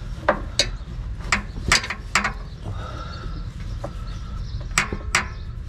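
Socket ratchet clicking and tools knocking on metal while working a motor mount bolt: about eight sharp, irregularly spaced clicks, bunched in the first two seconds and again near the end.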